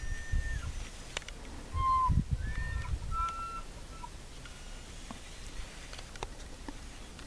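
Bull elk bugling in the distance: several short, high whistled notes at different pitches in the first few seconds. Low bumps of camera handling on the microphone come with them.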